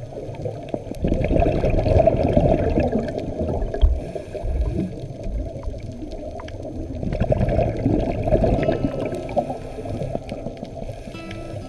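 Muffled underwater water noise picked up by a camera held under the sea: a low rumbling and gurgling that rises and falls in swells.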